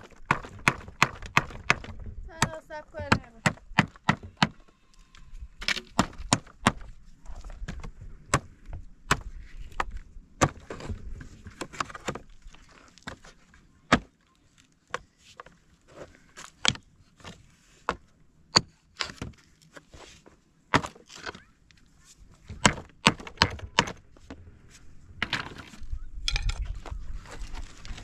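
Repeated hammer blows: sharp strikes coming about two a second at first, then irregularly with pauses between them.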